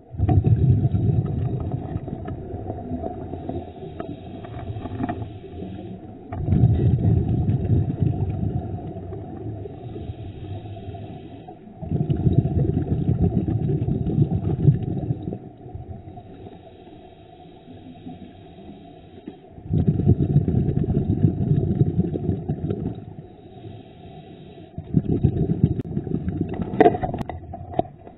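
Scuba diver breathing through a regulator, heard underwater: muffled bubbling rumbles from the exhaled bubbles, each lasting about three seconds and coming roughly every six seconds, with quieter inhalations between.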